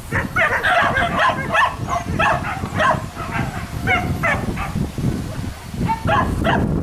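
Hunting dogs held on leashes barking repeatedly, a few barks a second, with a short lull about five seconds in.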